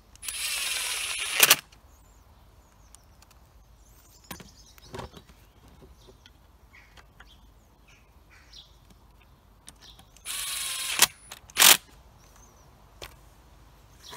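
Milwaukee M12 Fuel cordless driver running in two short bursts, about a second long near the start and a shorter one about ten seconds in, each followed by sharp clacks, as it drives in the screws of a chainsaw's anti-vibration mounts. Faint bird chirps in between.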